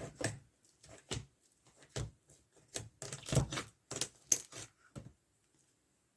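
Slime being squeezed and pressed by hand, giving irregular wet clicks and crackles, some in quick clusters, which stop about five seconds in.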